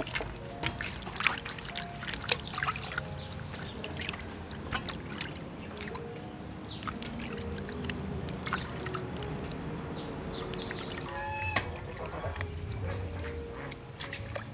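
Water splashing and dribbling as hands rinse raw shrimp in a steel basin, with many sharp splashes in the first few seconds, then softer sloshing.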